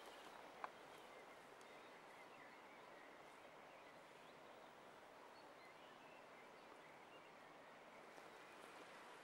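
Near silence: faint outdoor ambience with a single soft click a little under a second in and a few faint, distant bird chirps.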